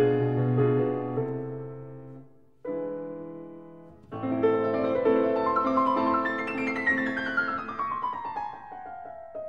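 Background piano music: the notes die away about two seconds in, a soft passage begins, then fuller playing returns about four seconds in, with a descending run of notes near the end.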